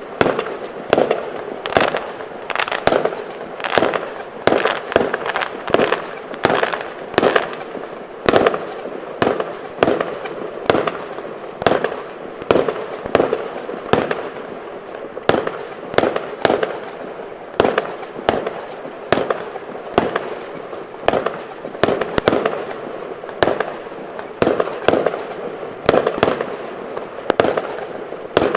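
Fireworks going off: a continuous string of sharp bangs, about one or two a second, over a steady background of hissing and crackling.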